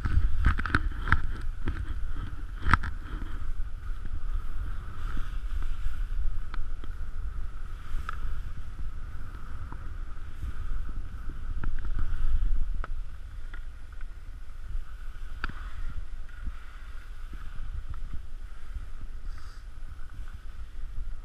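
Wind rushing over an action camera's microphone as randonnée skis run downhill, hissing and scraping over wind-packed snow, with a few sharp clicks.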